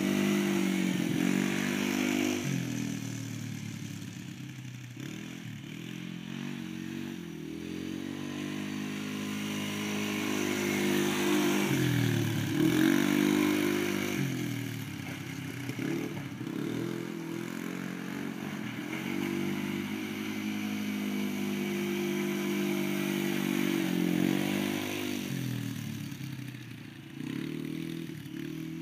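Polaris Sportsman 90 youth ATV's engine running as it is ridden around, its pitch rising and falling again and again with the throttle. It grows louder and fainter as the ATV comes near and moves away, loudest a little before halfway through.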